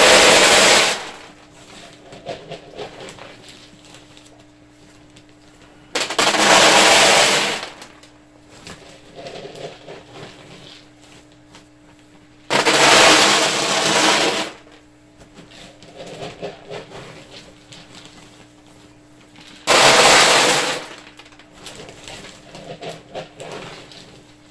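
Wood pellet bedding poured from a plastic cup into an empty hard-plastic kiddie pool: a rattling patter of pellets hitting the plastic, four pours of about two seconds each, roughly six seconds apart, with fainter rattles in between.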